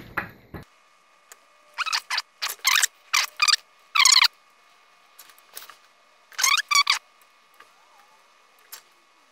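Hands handling a servo wire and a small flight-controller circuit board close to the microphone: several short, loud scraping and rustling bursts, with a faint steady high hum underneath.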